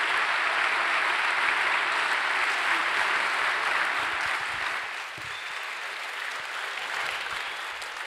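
Audience applauding at the end of a talk, a steady clapping that eases off somewhat about five seconds in.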